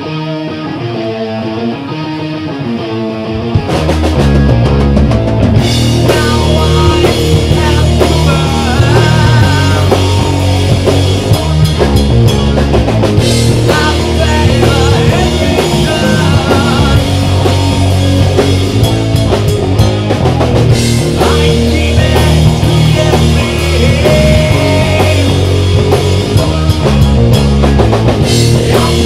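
Live heavy rock band: an electric guitar plays a wavering riff on its own, then drums and bass guitar crash in together about three and a half seconds in and the full band plays on loud.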